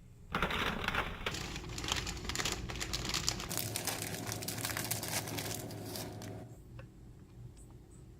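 Plastic packaging crinkling and rustling as mozzarella cheese is shaken out onto the lasagna. It starts about a second in and dies away after about six seconds.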